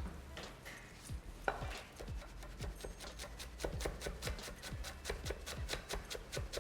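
Knife chopping fresh mint leaves on a cutting board. A few scattered strokes come first, then quick, even chopping at about five strokes a second from about halfway in.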